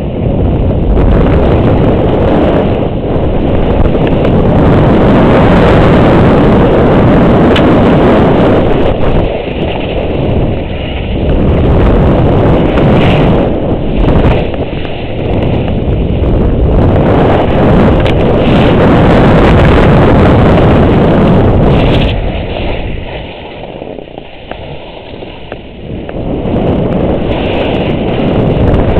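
Loud, continuous rush of wind over the microphone, mixed with snow hissing and scraping under a rider descending through powder among trees. It dips for a few seconds late on, then picks up again.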